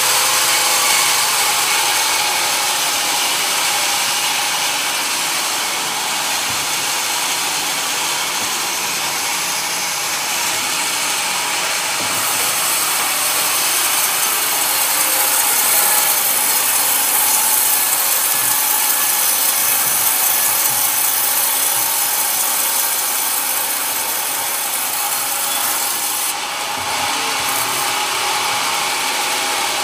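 Large vertical band saw ripping a coconut-wood plank fed through by hand: a steady, high-pitched sawing noise that eases for a moment near the end.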